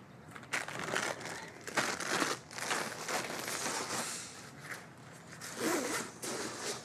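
Rustling and crinkling of plastic-wrapped packages and a bag being handled, in irregular bursts.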